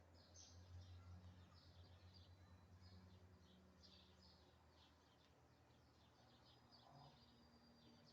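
Faint outdoor birdsong: many short, high chirps repeating without a break, over a steady low hum that fades out about halfway through.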